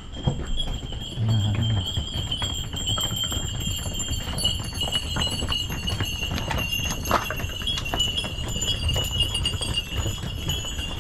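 Donkeys' hooves clopping irregularly on stone paving, over a steady high-pitched ringing.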